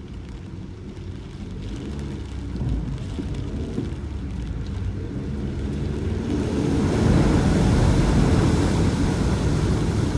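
A car driving in torrential rain: a steady low rumble of engine and road noise, with a hiss of rain and water spray that swells about six seconds in.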